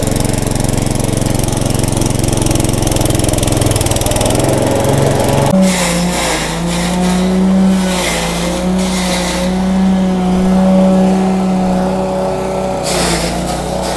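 A 6.5 hp single-cylinder petrol engine drives a belt-driven forage chopper. It runs at a low steady speed, then jumps to a higher steady pitch about five and a half seconds in. Fresh corn stalks are fed into the chopper, and its blades shred them with a loud hissing noise in spells until about nine seconds in, and again near the end.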